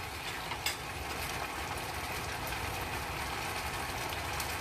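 Boneless chicken thigh pieces sizzling steadily in a skillet over a low hum, with one sharp tap about two-thirds of a second in.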